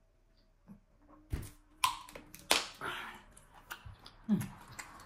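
Plastic water bottle being drunk from and handled: a few sharp clicks and crackles starting about a second and a half in. A short hummed 'mm' comes near the end.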